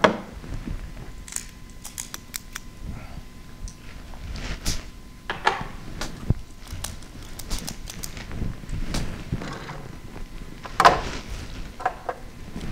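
Hands handling cigars: scattered small clicks, light metallic clinks and rustles, with a sharper click about eleven seconds in.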